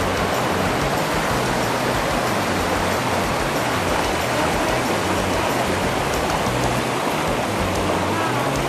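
Background music with low bass notes that change every second or two, over a steady rushing hiss.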